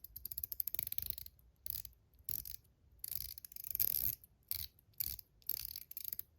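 Zircotite Top C fidget coin being worked by hand: a quick run of fine ratcheting clicks, then a series of about eight short sliding snaps.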